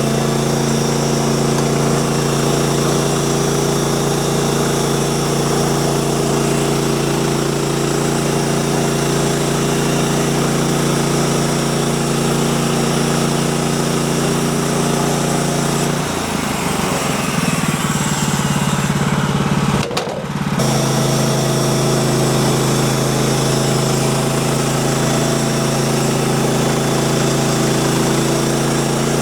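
The gas engine of a manual band sawmill running steadily at speed. About two-thirds of the way through, its note wavers and breaks up for a few seconds and ends in a sharp click, then it settles back to its steady run.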